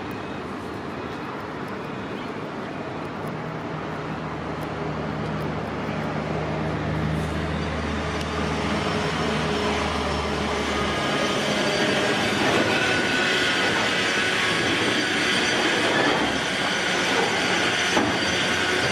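Container freight wagons rolling past at close range: a steady rumble of steel wheels on the rails that grows louder, with a thin high squeal from the wheels in the second half.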